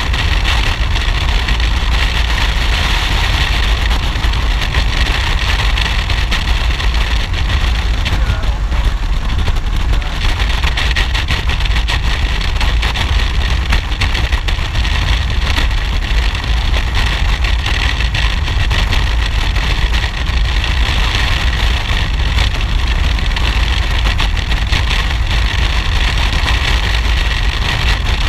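A Harley-Davidson motorcycle cruising at steady road speed: constant wind rush buffeting the helmet-mounted microphone over the even drone of the V-twin engine.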